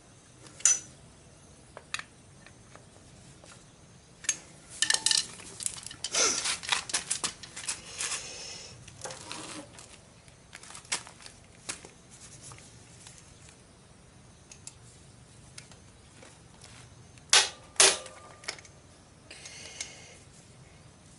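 Metal tools and small exhaust fittings clinking and clattering by hand at a motorcycle engine's exhaust ports, with a busy run of rattling from about four to nine seconds in. Two sharp hammer taps come a few seconds before the end.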